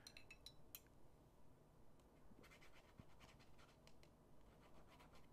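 Near silence, with faint light clicks and scratching of a dip pen tapping in a glass ink bottle and spreading ink on paper.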